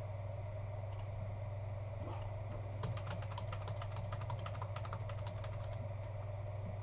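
Computer keyboard typing: a quick run of keystrokes, several a second, lasting about three seconds from near the middle, over a steady low hum.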